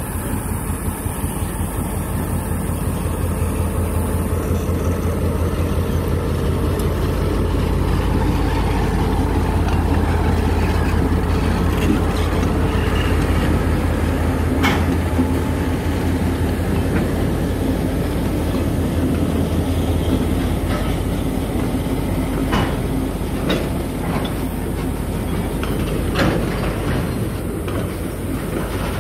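Two diesel locomotives hauling a freight train pass close by, their engines running with a low, pulsing rumble that fades after about twenty seconds. The freight wagons then roll past, with sharp clanks of the wheels on the track.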